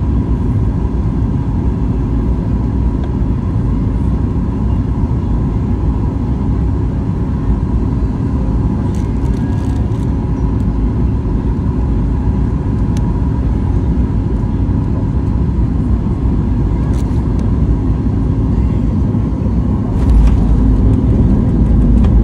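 Cabin noise inside a Boeing 737 MAX 8 on final approach: a loud, steady rumble of airflow and engines. About twenty seconds in it steps up into a heavier rumble as the wheels touch down and the airliner rolls out on the runway.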